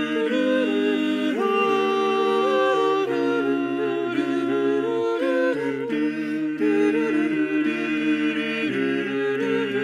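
Four-voice mixed a cappella group, one woman and three men, singing close harmony without words, sustained chords that shift every second or so.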